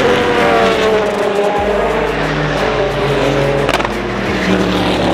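Race car engines running hard at speed, their pitch falling as they pass, with a sharp crack about three-quarters of the way through.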